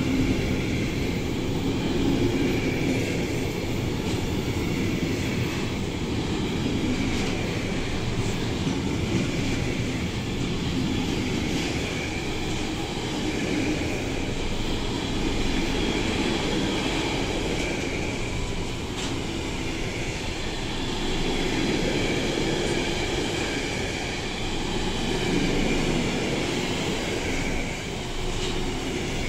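Long container freight train rolling past close by: a steady rumble and rattle of the wagons' wheels on the rails, swelling and easing slightly as the wagons go by, with a high whine from the wheels that comes and goes.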